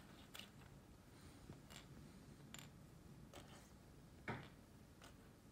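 Faint light ticks of wooden toothpicks being set down one at a time on a wooden surface, about six in all, the loudest a little after four seconds.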